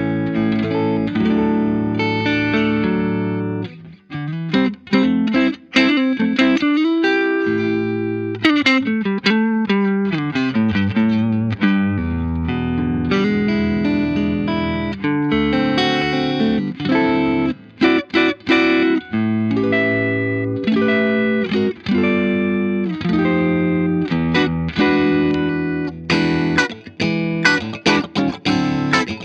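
Electric guitar played through the Boss IR-2 amp and cabinet simulator set to its Fender Twin Reverb model, a fairly clean tone with little gain: chords and picked single-note runs, including a descending run about nine seconds in.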